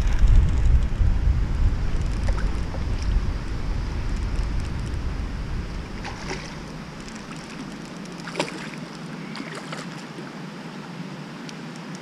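Wind buffeting the microphone with a low rumble that eases off about six seconds in. A hooked bass then splashes at the water's surface beside the kayak a few times, the sharpest splash about eight seconds in.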